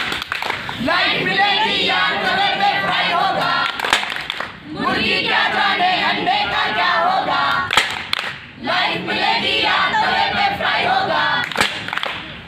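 A group of voices singing together in unison, phrase after phrase, breaking off briefly twice.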